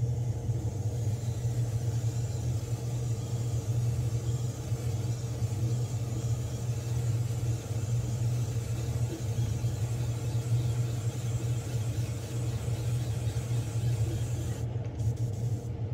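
Airbrush spraying candy paint: a steady airy hiss over a continuous low hum, the spray breaking off near the end.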